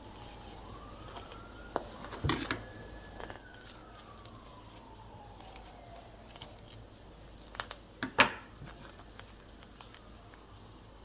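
A siren wailing in the background, its pitch sliding slowly down, up and down again, while a few short knocks and clatters sound, the loudest about eight seconds in.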